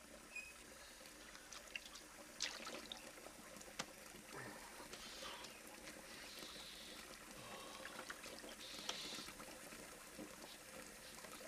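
Faint water trickling from a bathroom tap, with small splashes and drips as a man washes his face with his hands.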